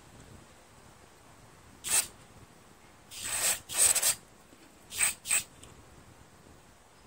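Aerosol carburetor cleaner sprayed through a thin extension straw in five short hissing bursts: one about two seconds in, two longer ones a second later, and two quick ones near the end. The spray is blowing out the small jet hole in a Tecumseh carburetor's bowl nut to clear it.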